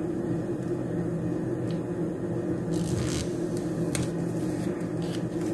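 A steady low hum, with a few faint taps and rustles as a paper sticker is pressed onto a planner page.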